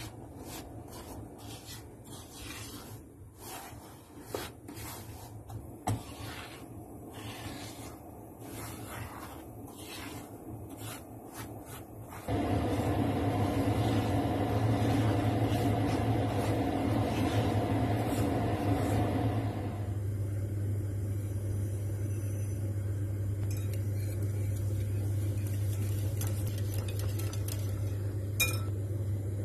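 Silicone spatula scraping and stirring dry semolina in a pan, a gritty rasp with each stroke, as the semolina toasts without fat. About twelve seconds in, a steady low hum starts suddenly and stays louder than the stirring; near the end a wire whisk clinks a few times in a bowl.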